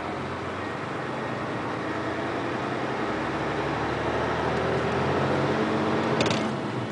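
Engine and road noise of a moving vehicle, the engine note rising slowly as it gathers speed, with a brief rattle about six seconds in.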